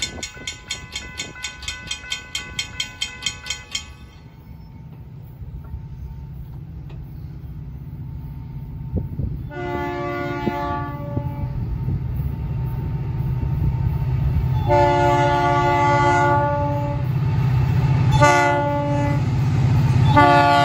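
A railroad grade-crossing bell ringing rapidly and evenly, stopping about four seconds in. A diesel freight locomotive then blows its multi-tone air horn in the grade-crossing pattern, two long blasts, one short and one more long blast starting near the end, over a low engine rumble that grows louder as the train approaches.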